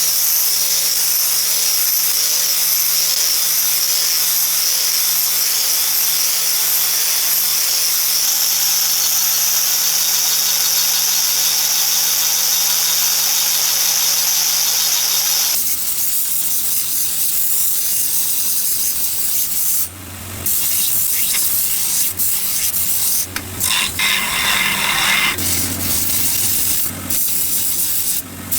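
Power tool with a spinning wheel working the steel of an old pipe wrench during rust cleanup: a steady hiss over a motor hum. About sixteen seconds in, the sound changes abruptly to an uneven, broken-up grinding that keeps cutting in and out.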